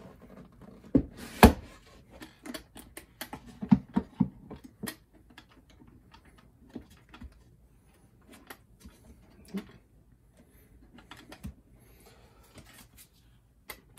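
Wooden crate handled on a wooden table: a few knocks in the first seconds as it is turned over and set down, the loudest about a second and a half in, then many small clicks and taps of fingers working at the small metal latch on its front, which is stiff to open.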